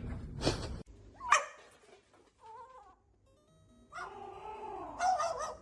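A pet animal calling: several short cries that slide up and down in pitch, the longest near the end, after a brief sudden noise about half a second in.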